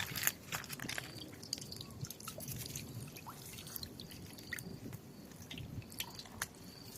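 Water dripping and splashing irregularly, with wet squelching and small clicks.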